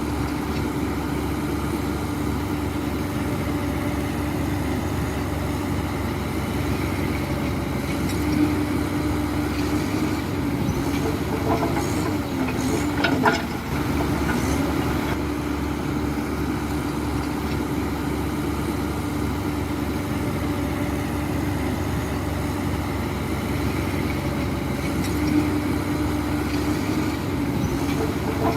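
Heavy diesel earthmoving machine engine running steadily under work. Its pitch dips briefly partway through, with a sharp metallic clank about thirteen seconds in.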